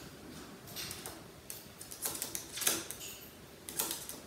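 Several light, unevenly spaced clicks and taps, about eight in four seconds, as the small parrot steps into the plastic pet carrier beside the target stick.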